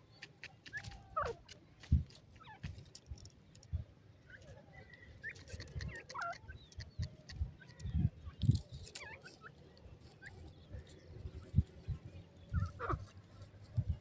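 Female grey francolin giving a few short, soft clucking calls at scattered moments. Irregular clicks and low thumps run between them, the loudest thumps a little past the middle.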